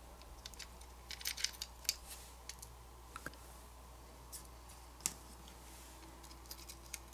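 Faint, scattered clicks and light ticks of fingers handling a small plastic hardware wallet's opened casing and circuit board: a quick cluster between about one and two seconds in, then a few single clicks.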